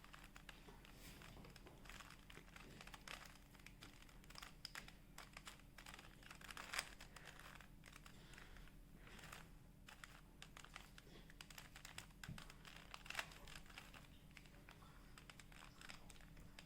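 Rubik's cube layers being turned by hand: faint, irregular plastic clicks and rattles as the faces are twisted.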